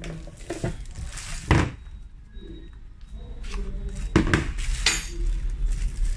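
Handling noises: a few separate knocks and clatters, the loudest about one and a half seconds in, and a short ringing metallic clink near the end.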